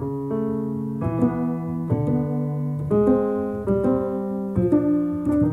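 Solo piano playing slow chords, struck about once a second and left to ring, reproduced by a Naim Mu-So 2G network speaker and recorded in the room from about a metre away.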